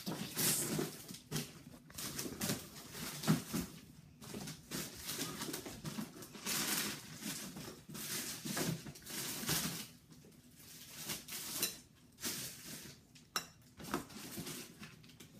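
Scattered soft knocks, taps and rustles of someone moving about and handling things in a kitchen, coming irregularly throughout.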